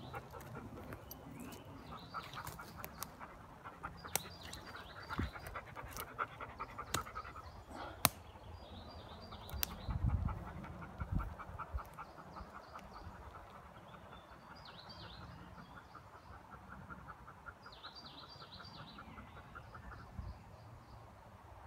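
Fast, even panting, with a few short bird chirps and some scattered clicks and thumps of handling.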